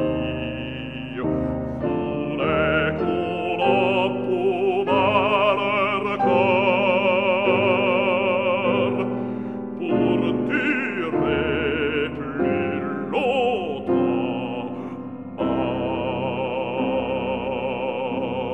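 A baritone sings a French art song with piano accompaniment, in an operatic style with strong vibrato. He holds long notes in the middle and again for the last three seconds.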